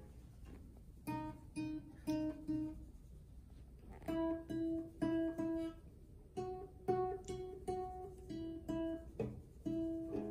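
Nylon-string classical guitar played by a beginner: a simple tune on the notes E, F and G, plucked one note at a time and slowly, starting about a second in.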